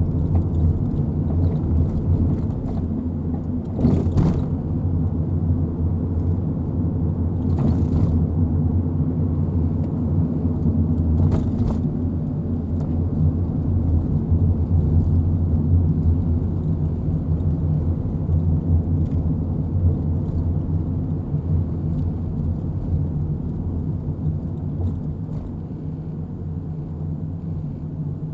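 Steady low drone of a motor vehicle running, with a few brief knocks about 4, 8 and 12 seconds in.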